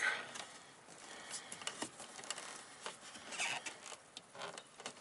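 Faint scattered clicks and light metallic rattles of a small wire retaining bar being handled and worked into its hook beside the fuel filter under a Mk4 VW GTI.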